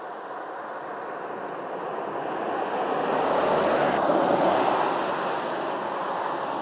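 Ford Ranger Raptor pickup driving past, a steady rush of tyre and road noise that swells to its loudest about four seconds in and then fades as the truck pulls away.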